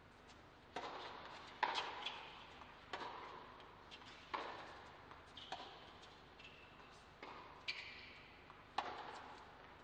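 Tennis rally opening with a serve: racquets strike the ball back and forth, a sharp pop roughly every second, with fainter ticks between the hits. Each strike trails off in the echo of an indoor arena.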